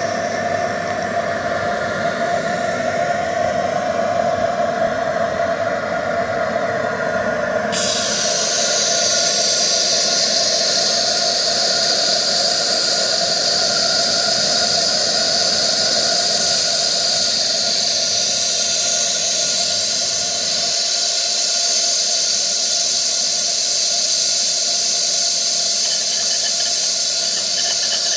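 Cotswold Heritage Perseus model steam plant hissing steadily as steam escapes. About eight seconds in, a louder, higher-pitched hiss starts abruptly and holds.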